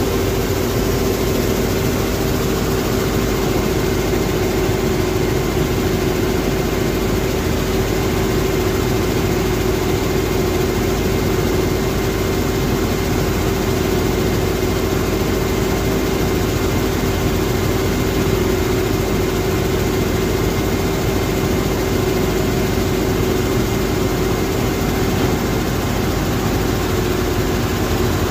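Claas Dominator 48S combine harvester running steadily under a constant engine and machinery drone, with a steady whine held throughout.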